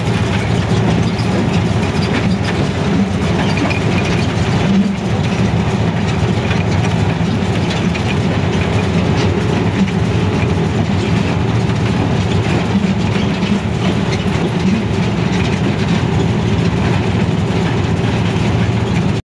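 HBU 20 diesel-electric locomotive running at speed, heard from inside the cab: a steady engine drone together with the rumble and clatter of wheels on the rails.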